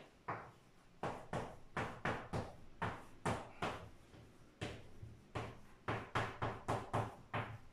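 Chalk writing on a chalkboard: a quick, uneven series of sharp taps and short scratches as letters are stroked out, several a second.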